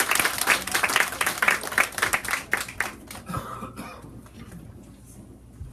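Small audience clapping, dying away after about three seconds.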